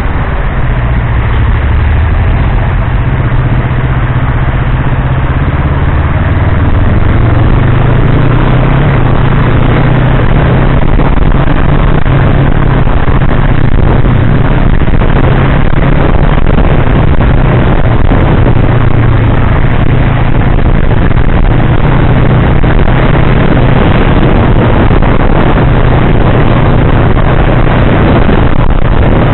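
Yamaha R3's parallel-twin engine with an Akrapovič slip-on exhaust, picking up speed about six seconds in and then holding a steady cruise, over a constant rush of wind and wet-road noise.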